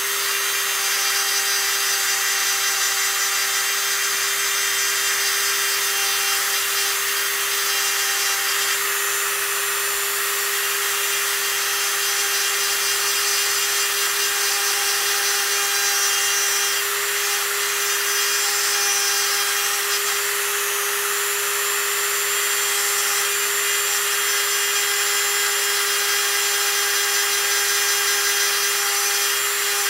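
Dremel rotary tool with a fine pointed bit running at a steady speed with a steady whine, grinding through the paint and outer layer of a painted artificial duck head.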